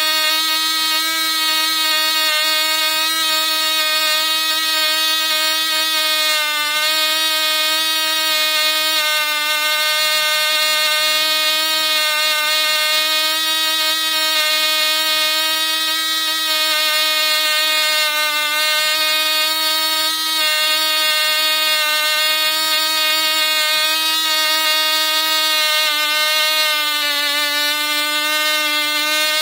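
Vintage Cox Tee Dee .049 two-stroke glow engine running flat out on 25% nitro fuel, swinging a 5x3 APC propeller at about 19,500 rpm. A steady, high-pitched buzz, its pitch sagging slightly about six and a half seconds in and again near the end.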